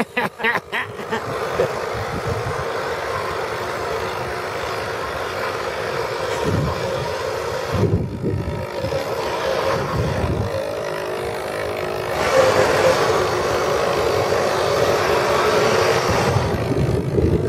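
Drive motors of a radio-controlled model tugboat with twin Schottel drives running steadily as it cruises, with a hum over a rushing background. The hum grows louder about twelve seconds in as the tug comes close.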